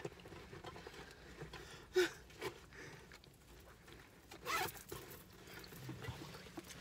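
Faint rustling and handling noises, with a louder rustle about four and a half seconds in.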